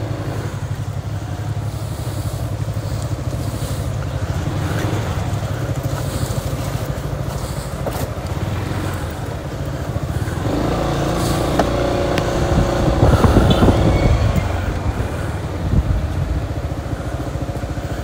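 Motorcycle engine running under way, a steady drone that grows louder for a few seconds just past the middle.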